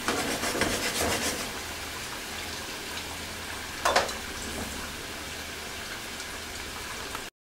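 Ribeye steaks simmering and sizzling in a cream pepper sauce in a frying pan, a steady bubbling hiss. Metal tongs clink against the pan in the first second or so, and there is one sharp click about four seconds in; the sound cuts off suddenly near the end.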